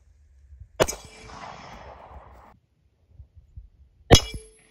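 Two shots from a .40-calibre Springfield XD-M pistol, about three seconds apart, the second louder. Each is followed by a metallic ring as the bullet strikes the 3/8-inch AR500 steel target plate.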